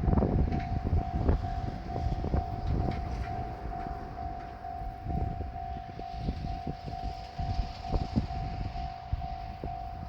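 Japanese level-crossing warning bell sounding its quick repeating electronic ding while a diesel train passes over the crossing. Low rumble and wheel knocks over the rail joints are loudest at the start.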